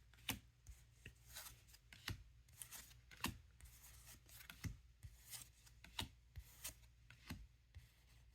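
Faint, irregular soft clicks and rubs of trading cards being handled and slid through one after another, a little under one a second.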